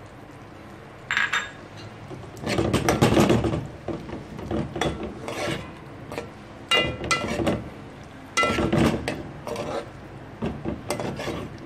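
Metal spoon stirring chunks of chicken and vegetables in a sauce in a metal pot: repeated scraping and clicking against the pot in short bouts, with a single ringing clink about a second in.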